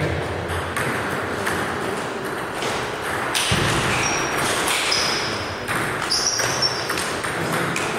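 Table tennis ball clicking off bats and table in a rally, with further ball clicks from nearby tables. A few short high squeaks come in about halfway through and again later.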